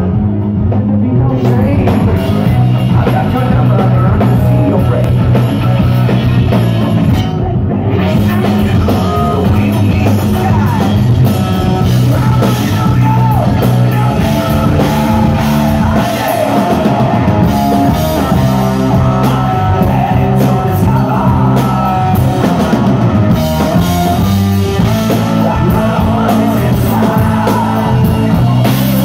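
Hard rock band playing live: electric guitar, bass guitar and drum kit, with a singer.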